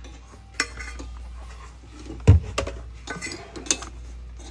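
Metal kitchen utensils clinking and clattering as hand-mixer beaters are handled and fitted, with one heavier knock about two seconds in, the loudest sound.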